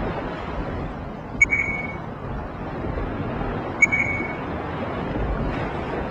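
Steady industrial rumble with a short, high electronic beep sounding twice, about two and a half seconds apart.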